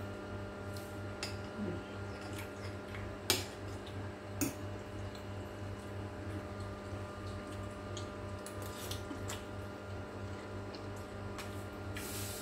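Eating noodles with a fork from a ceramic bowl: chewing and small slurping noises, with the fork clinking sharply against the bowl twice a few seconds in. A steady low hum runs underneath.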